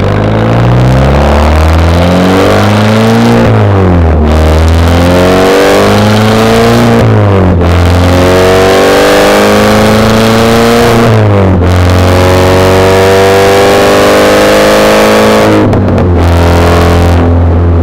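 2010 Volkswagen CC's turbocharged 2.0-litre four-cylinder engine, through a full straight-pipe exhaust, accelerating through the gears. Its note climbs in pitch and drops back sharply about four times, once at each upshift, then holds steady at a lower pitch near the end.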